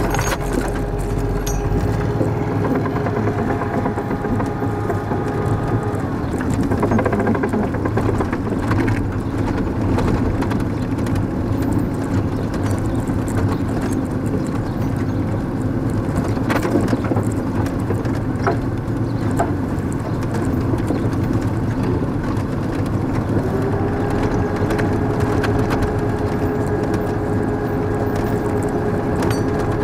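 Military patrol vehicle driving at low speed, heard from the open gunner's turret: steady engine and road noise with a whine that fades out about six seconds in and comes back, rising slightly, near the end. A few knocks and rattles from the vehicle.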